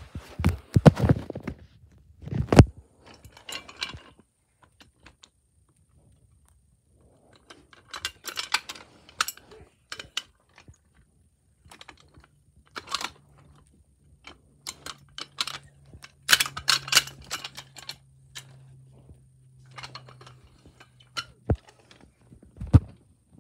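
Toys being handled: irregular clicks, knocks and light rattles as small toys are picked up and moved about, with a short quiet pause a few seconds in.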